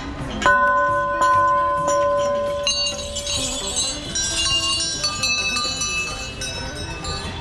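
Temple bells being rung: one bell struck three times in quick succession, each strike ringing on, then several higher-pitched bells clanging together.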